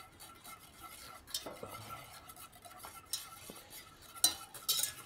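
Light kitchen clatter: a knife cutting zander fillet into pieces on a wooden cutting board, and a spoon stirring in a small pot. A few sharper clicks come near the end.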